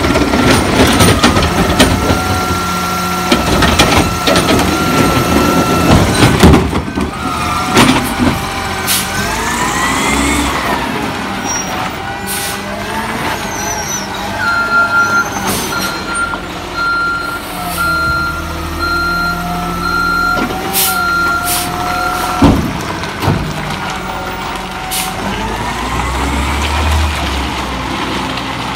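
CNG Peterbilt 320 recycling truck with a McNeilus ZR automated side-loader arm working a curbside cart: a steady hydraulic whine as the arm dumps and lowers the cart, sharp knocks and air hisses, then rising engine revs as the truck moves off. A repeated beeping alarm sounds for several seconds in the middle.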